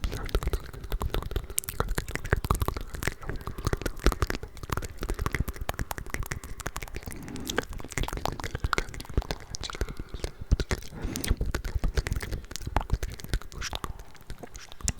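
ASMR mouth sounds: dense wet clicks and smacks from several layered tracks, with faint unintelligible whispering underneath.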